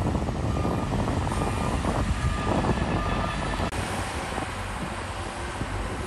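Heavy earthmoving machinery's diesel engine running with a steady rumbling drone, a little quieter in the second half.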